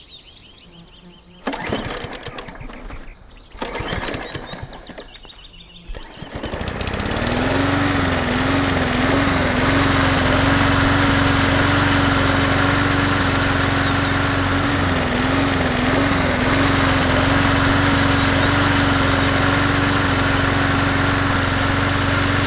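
A small engine starts up about seven seconds in and then runs steadily, its pitch wavering briefly a couple of times. Before it, a few short loud noisy stretches.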